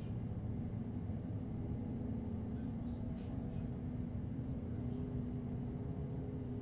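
Steady low rumble of distant engine noise, with a faint, even droning hum over it.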